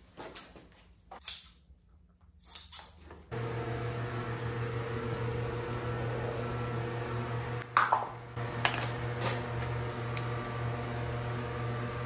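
A few sharp crinkles of fiberglass cloth being rolled out and handled, then, about three seconds in, a steady electric hum of box fans starts suddenly and runs on. A few sharp clatters of a plastic mixing cup sound near the middle.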